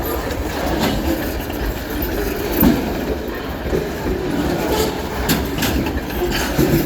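Escanaba & Lake Superior freight train cars rolling past, with a steady rumble of wheels on rail and sharp clanks from the wheels and couplers about one, two and a half, and five seconds in, as the cars rock along.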